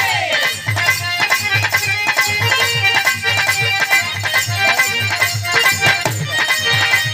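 Instrumental interlude of live Bhojpuri birha folk music: harmonium holding a melody over a steady beat of low drum strokes, about two to three a second, and clicking hand percussion.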